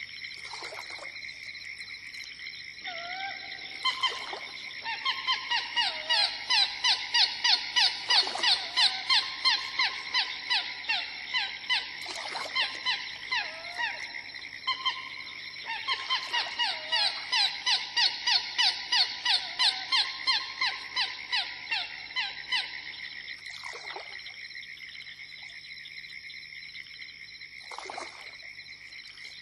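Field recording of a Florida swamp in the early morning: a steady chorus of frogs and insects, with two long runs of loud calls repeated evenly at about two a second, and a few short falling calls scattered through.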